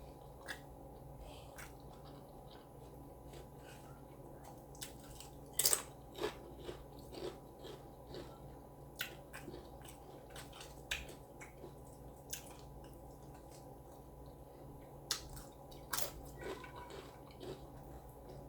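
Close-up eating sounds: a person chewing a taco with a crunchy hard shell, with scattered crunches and wet mouth clicks, loudest about a third of the way in and again near the end.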